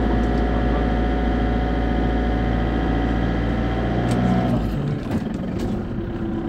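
Motorhome engine heard from inside the cab while driving, running with a steady hum; near the end the steady note and low rumble cut out suddenly, leaving a rougher, slightly quieter road and engine noise.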